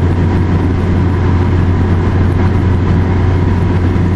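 Steady road noise inside a car's cabin while driving on a freeway, a constant low drone with a rushing hiss over it.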